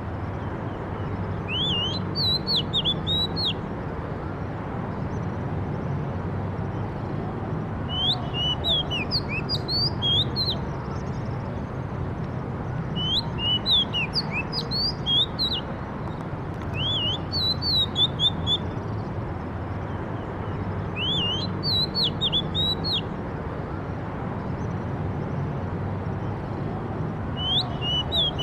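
A songbird singing short phrases of quick up-and-down sweeping chirps, one phrase every four to six seconds with pauses between, over a steady low background rumble.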